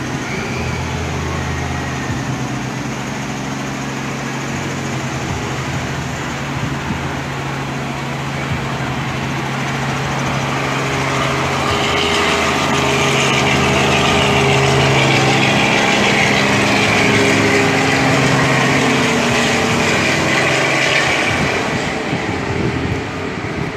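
Helicopter rotor and engine noise, a steady low pitched drone that grows louder toward the middle and eases off near the end.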